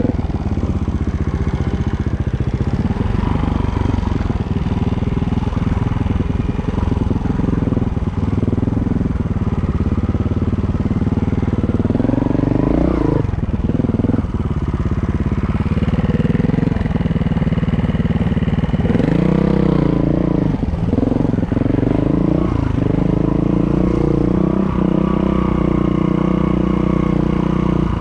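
Honda 4RT trials bike's four-stroke single-cylinder engine running at low revs while being ridden, with sharp throttle blips that rise and fall about 13 seconds in and again around 19 to 21 seconds in.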